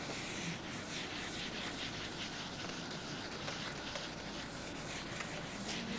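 Board eraser rubbing across a writing board, a steady scratchy wiping.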